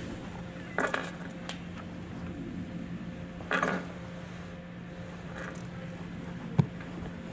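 A few short clinks and rattles, then one sharp knock near the end, over a steady low hum.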